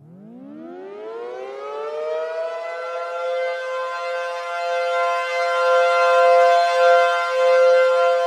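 Civil defense siren winding up from silence, its pitch rising over about two and a half seconds, then holding a steady wail that swells and dips in loudness.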